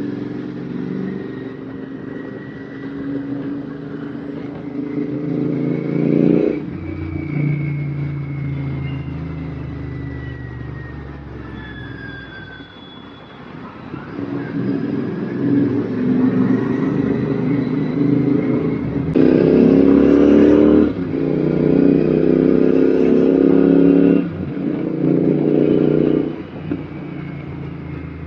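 Royal Enfield Continental GT 650's parallel-twin engine through an aftermarket RRP exhaust, riding and accelerating through the gears. The exhaust note climbs and drops sharply at each shift, several times, with a quieter stretch off the throttle about halfway through.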